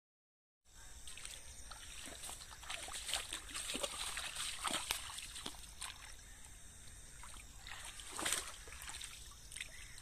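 Shallow muddy water splashing and sloshing as a person wades barefoot through it and works his hands in the water, in many short, irregular splashes. It starts abruptly about half a second in.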